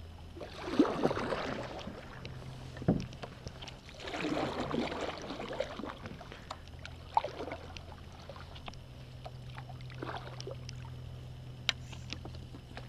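Kayak paddle strokes in the water: a swish every few seconds, with a light knock about three seconds in.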